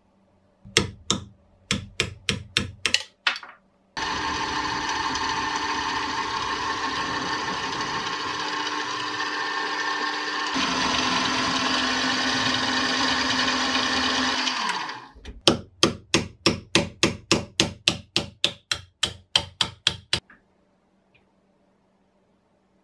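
A quick series of hammer blows on metal, then a drilling machine running steadily for about eleven seconds as it drills out a steel rivet held in a vise, changing tone partway through and winding down. Then a second, longer run of about fifteen even hammer blows, some three a second.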